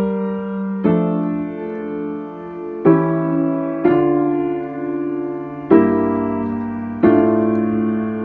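Piano playing a slow, harmonised passage in D minor, six chords struck one after another and each left to ring; it is the example played to demonstrate an interrupted cadence in a minor key.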